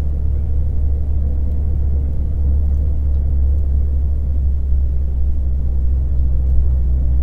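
A car driving along a road: a steady low rumble of engine and tyre noise, even throughout with no revving or distinct events.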